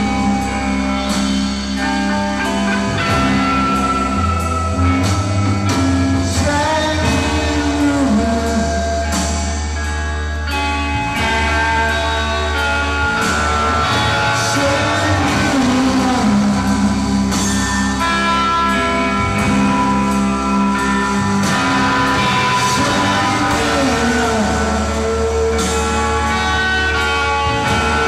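Psychedelic rock band playing live: wavering sung vocal phrases over sustained electric guitar, bass and drums, loud and continuous.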